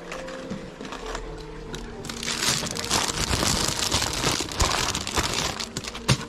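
Plastic lure packaging crinkling and rustling as it is handled, thickest from about two seconds in.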